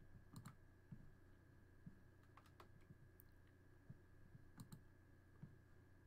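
Faint computer mouse clicks: three quick double clicks about two seconds apart, with a few weaker ticks between, over a low steady hum.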